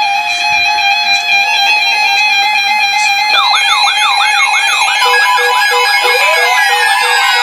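Several NOAA weather radio receivers sounding their alert alarms at once, set off by a warning broadcast. Steady and beeping tones are stacked together, and a fast warbling siren tone joins about three seconds in, followed by pulsed beeps and rising sweeps.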